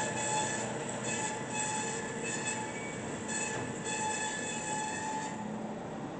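Kalamazoo KCT1016W horizontal band saw cutting through metal stock as its head feeds down: a steady running noise with high ringing tones from the blade that come and go irregularly, then stop about five seconds in.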